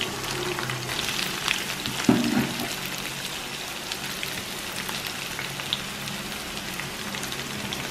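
Onions and curry leaves frying in hot coconut oil in a kadai: a steady sizzle with small crackles.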